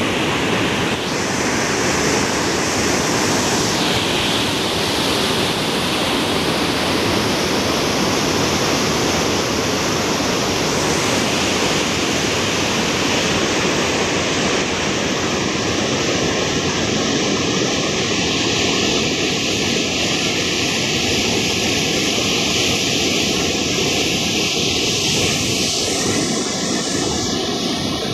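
Canal water rushing through the open sluice gates of a brick regulator, a steady loud noise of churning white water.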